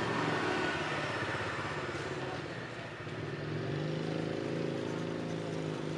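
A motor engine running steadily in the background, a low hum that swells slightly in the second half.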